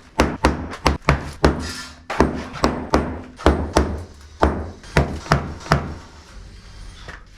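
Hand hammer blows breaking the edge of a concrete floor slab, about three strikes a second, stopping about six seconds in.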